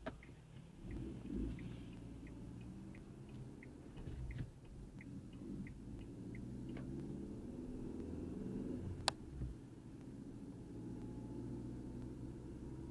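Car turn-signal indicator ticking about three times a second, stopping after about seven seconds, over the low rumble of engine and road noise inside the cabin. A single sharp click about nine seconds in.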